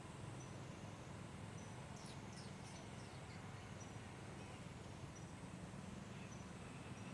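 Faint outdoor background: a steady low rumble with short, high chirps recurring about once a second, and a quick run of three or four high squeaks about two seconds in.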